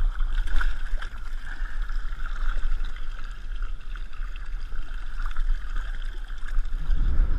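Wind buffeting the microphone with a low rumble, over water splashing and lapping against the side of a drifting boat.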